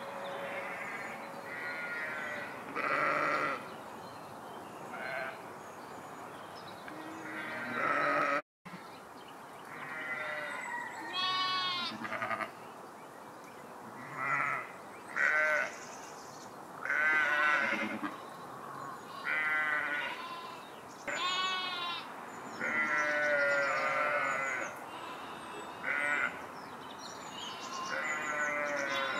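A flock of sheep bleating: many separate wavering calls, one after another and sometimes overlapping, with a very brief break in the sound about eight seconds in.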